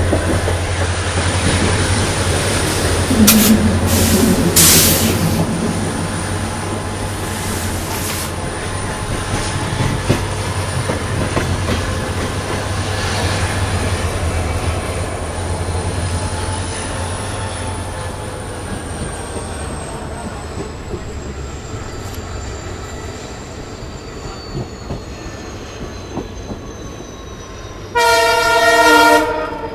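Passenger train heard from inside a coach: the EMD-engined WDP4 diesel locomotive hums steadily under the wheel and rail noise, with loud clanks about 3 and 5 seconds in. A thin whine then falls in pitch as the hum fades, and a locomotive horn blows for about a second and a half near the end.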